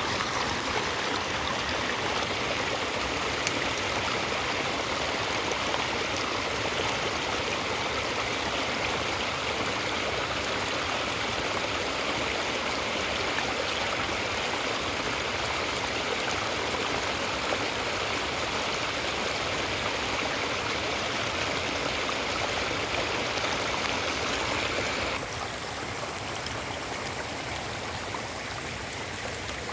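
Small forest stream, swollen after days of heavy rain, rushing steadily over rocks in little cascades. It turns a little quieter near the end.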